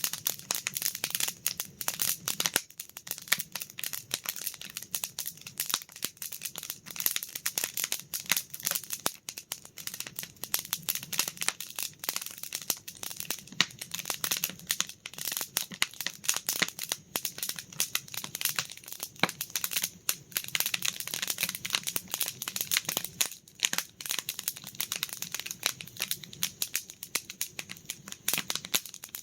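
Wood campfire crackling: dense, irregular pops and snaps without pause.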